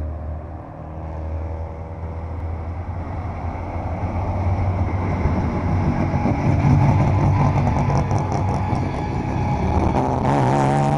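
Engines of a line of hill-climb race cars driving past one after another, louder as each passes close, with a short rush of noise near the end.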